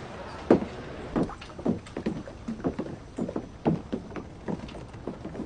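Water slapping and lapping against a boat's hull in short, irregular splashes about twice a second over a steady wash of noise.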